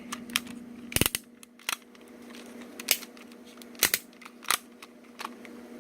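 Sharp clicks and clacks of a die-cast and plastic toy robot's joints and parts being folded out and snapped into place by hand, about eight separate clicks, loudest about a second in and just before four seconds. A faint steady hum lies underneath.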